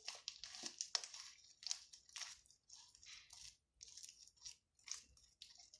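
Homemade glue slime being kneaded and pulled by hand, giving faint, irregular little clicks and crackles as the still-sticky slime clings to and peels off the fingers.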